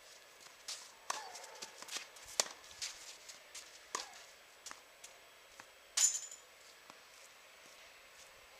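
Tennis balls being struck and bouncing on a court: a loose series of sharp pops, some with a short hollow ring, the loudest about six seconds in.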